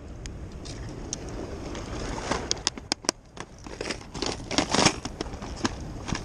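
Clear plastic tackle boxes being handled in a fabric shoulder bag: irregular clicks and plastic clatter as the boxes are lifted out and slid back in, busiest and loudest in the second half, with some crinkling rustle.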